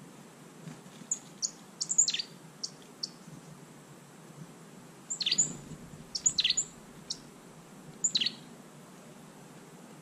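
Tit calling: short, sharp, high notes that sweep downward, in three bursts, about one to three seconds in, five to seven seconds in, and once more near eight seconds.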